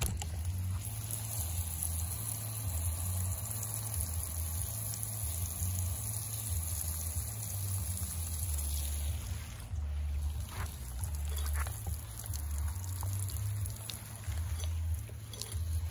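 Water spraying from a garden hose onto flowers and foliage, a steady hiss that weakens about two thirds of the way through, with a low rumble underneath.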